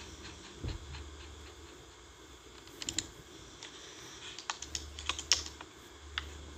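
A handful of light, sharp taps and clicks from a hand, clustered about three to six seconds in, the tapping or typing kind of sound. Under them runs a faint low hum.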